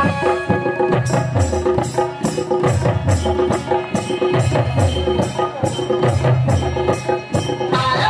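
Folk dance music with a quick, steady percussion beat of about three strikes a second and a sliding low melody line.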